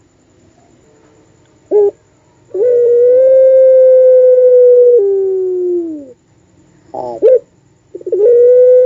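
Puter pelung (domestic turtle dove) giving its long drawn-out coo: a short note, then a long, steady held note that steps down and falls in pitch at its end. A second short note follows, and another long note begins near the end.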